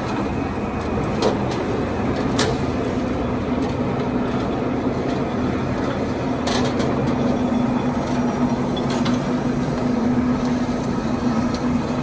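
Steelmaster 16-station TDF duct rollformer running, its 3 kW motor and rollers giving a steady hum that firms up a few seconds in as a galvanized steel sheet is rolled into a 35 mm TDF flange. A few sharp clicks come in the first seven seconds.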